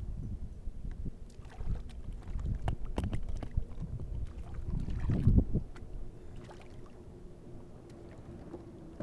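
A kayak moving on the water: a low rumble with scattered knocks and clicks against the hull, loudest about five seconds in, then settling to a quieter steady background.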